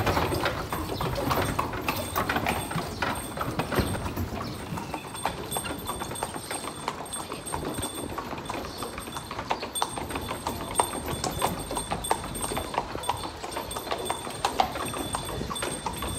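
A carriage horse's hooves clip-clopping steadily on stone paving as it pulls a carriage at a walk.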